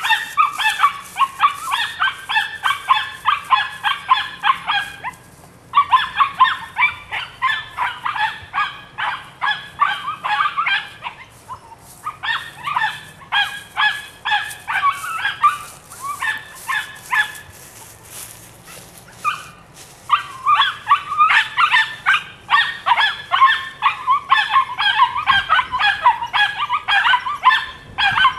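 Belgian Malinois puppy yapping in rapid high-pitched runs of several yelps a second, each run lasting a few seconds, with short pauses between runs.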